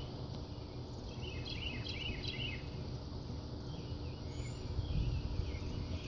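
Outdoor evening ambience: a steady low rumble with a faint hum under it. A run of quick, high chirps comes about a second in, and fainter chirps come again later.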